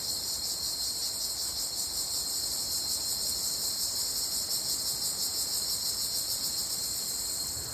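Steady, shrill chorus of forest insects, an unbroken high-pitched buzzing drone.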